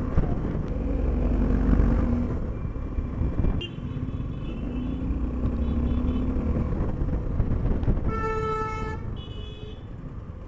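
Suzuki V-Strom motorcycle running in city traffic, with engine, wind and road noise easing as the bike slows. About eight seconds in, a vehicle horn sounds for about a second, followed at once by a shorter, higher-pitched horn.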